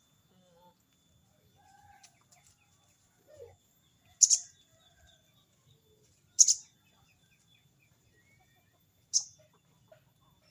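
Sogon bird giving its sharp 'crecet' calls, three short, loud, high-pitched bursts about 4, 6½ and 9 seconds in, with fainter small chirps between them. In the hobby this is a bird calling out to a rival.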